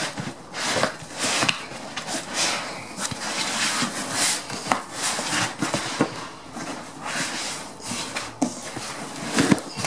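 Cardboard and foam packaging being handled, rustling and scraping irregularly with scattered sharp clicks and knocks, as a sheet-metal inverter mounting bracket is lifted out of the box. The loudest knock comes near the end.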